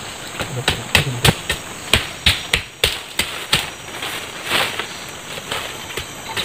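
Machete chopping through bamboo and brush: a run of sharp, irregular strikes, thickest in the first half, then sparser.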